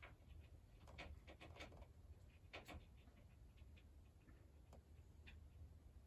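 Gray squirrel making a few soft, irregular clicks over near silence.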